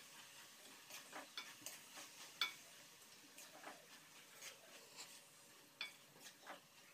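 A wooden spoon stirring shredded cabbage and potatoes in a metal wok: faint, irregular scrapes and taps of the spoon on the pan, the loudest knock about two and a half seconds in.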